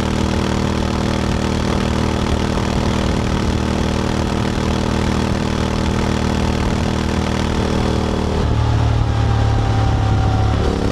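Honda X-ADV 750's parallel-twin engine running through an SC-Project SC1-S titanium slip-on exhaust, holding a steady note. About eight and a half seconds in the note drops and deepens, then returns to the earlier note near the end.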